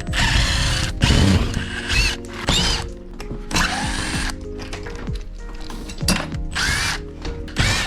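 Power drill run in about six short bursts, several spinning up with a rising whine, as when driving fasteners.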